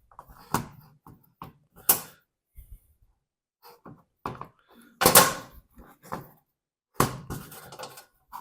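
Irregular clicks, knocks and short clatters of parts and tools being handled on a workbench, loudest a little past halfway and again near the end.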